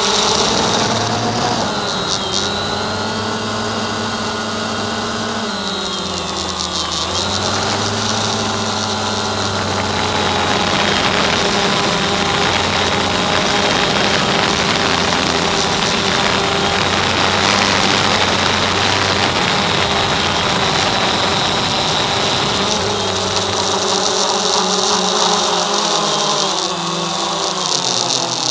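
A camera drone's electric motors and propellers humming in several pitches that shift up and down as it manoeuvres, with a rushing hiss over the hum through the middle stretch.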